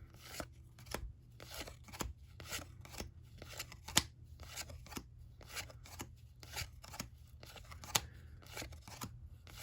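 1990-91 NBA Hoops trading cards being slid off the stack one by one, the card stock rubbing and snapping in a quick run of about two or three strokes a second. A sharper snap comes about four seconds in and again about eight seconds in.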